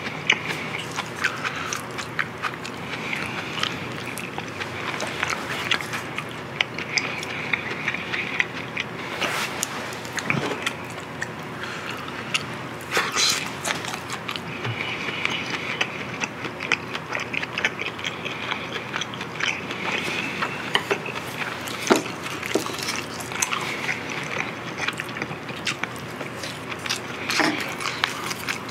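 A person chewing a mouthful of food close to the microphone: a steady run of small wet clicks and smacks, with a few sharper ones now and then.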